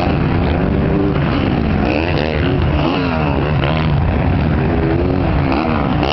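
Several motocross bike engines revving hard as riders take a jump, their pitch rising and falling over and over and overlapping, with one bike swooping down and back up in pitch near the end.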